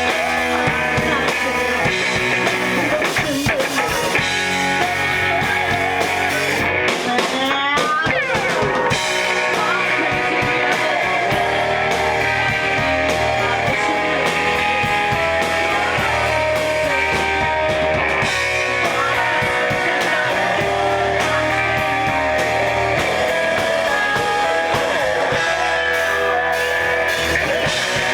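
Live rock band playing: electric guitars over bass and a drum kit, with a rising glide in pitch about seven seconds in.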